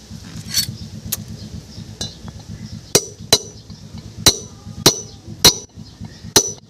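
Sharp metal-on-metal taps with a short ringing tone, about eight at uneven intervals, as a hammer or tool strikes differential parts, over a steady low hum.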